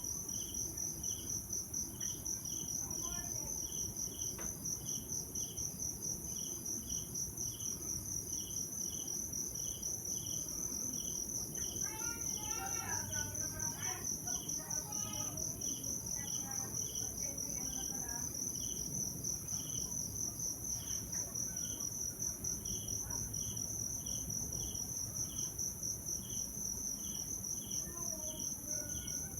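Crickets chirping: a continuous, rapidly pulsing high trill together with a lower chirp repeating at an even pace. About twelve seconds in, a few seconds of quick warbling calls from another animal rise over them.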